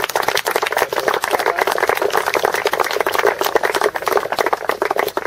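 A small crowd of people clapping: dense, continuous applause that thins out right at the end.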